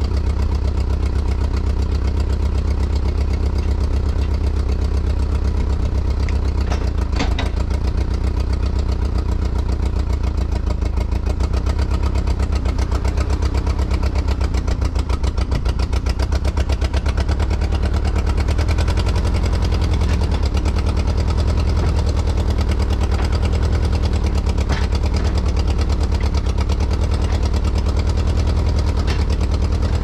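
Gehl 4400 skid steer loader's engine running steadily as the loader arms are let down on their hydraulic lift cylinder. The engine has a slight miss, which the owner puts down to having flooded it while starting.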